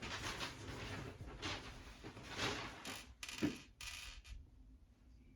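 Small plastic kit parts being handled and fitted together: irregular rustling and light clicks, with one sharp click about three and a half seconds in, then quieter.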